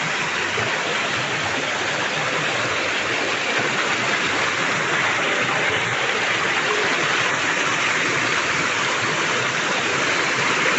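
River water rushing steadily over rocks, a continuous even noise without breaks.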